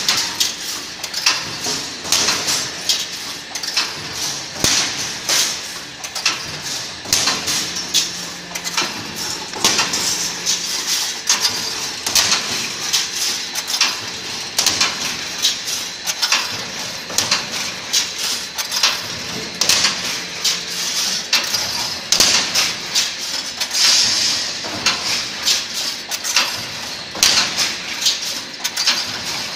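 A 42-point automatic welded wire mesh machine running: its spot-welding heads and mesh-pulling carriage make repeated sharp metallic clanks and knocks, cycle after cycle, as cross wires are welded onto the mesh.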